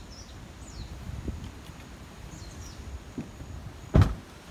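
Short, falling bird chirps repeat over a steady low rumble. A single sharp thump about four seconds in is the loudest sound.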